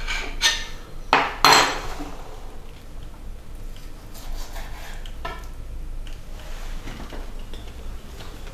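A kitchen knife and spoon knocking and tapping on a wooden cutting board while stuffed dried fruits are cut in half. Three sharp knocks come in the first two seconds, the loudest about a second and a half in, followed by lighter scattered taps.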